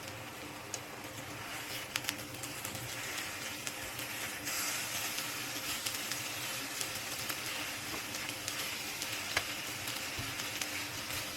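Oil sizzling in a frying pan: a steady hiss with scattered pops and crackles, getting louder about four and a half seconds in.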